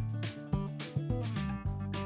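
Background music with a steady beat, about two beats a second, over sustained bass notes.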